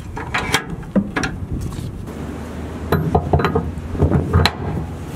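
Steel hitch hardware being handled: the spring-loaded safety-chain U-bolts and gooseneck ball of a B&W gooseneck hitch clink and clank against the steel hitch plate and socket. A few light clinks come in the first second or so, then a cluster of louder clanks about three to four and a half seconds in.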